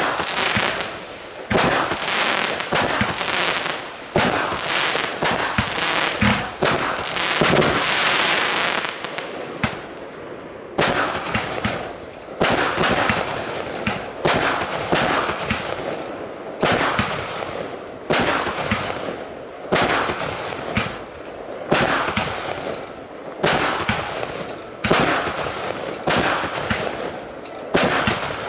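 A fireworks battery (cake) firing a rapid series of aerial shots, about one a second. Each launch is followed by the bang and noisy tail of its burst, and around six to nine seconds in the shots run together into a denser stretch.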